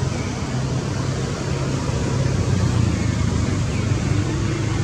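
Steady low rumble and hum with a hiss over it, unbroken throughout.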